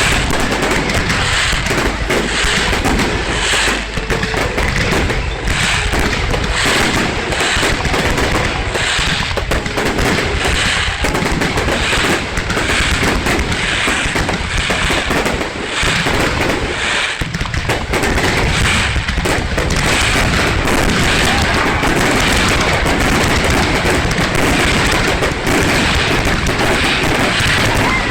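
Aerial fireworks display: a dense, continuous barrage of overlapping bangs and crackles, the shells going off several times a second throughout.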